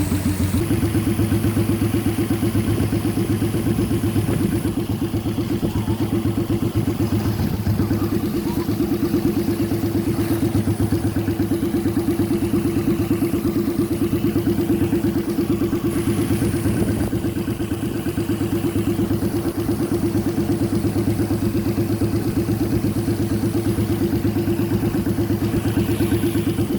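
The 1000cc car engine of a custom-built motorcycle idling steadily, with an even, rapid firing beat and no revving.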